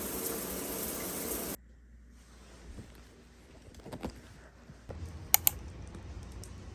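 A steady hiss that cuts off suddenly after about a second and a half, then quiet room sound with scattered light clicks and two sharp clicks in quick succession about five seconds in.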